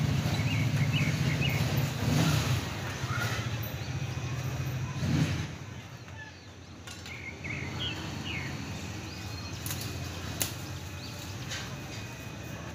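Outdoor ambience: a low steady hum, louder in the first half and fainter after a dip about six seconds in, with short bird chirps now and then and a few light clicks near the end.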